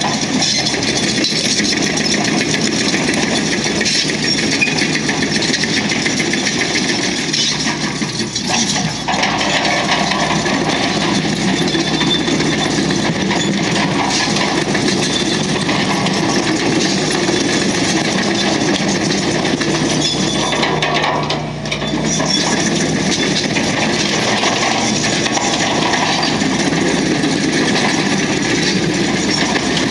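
Hydraulic excavator working: its diesel engine runs steadily under a constant clatter of scraping and knocking. The noise eases off briefly about two-thirds of the way through.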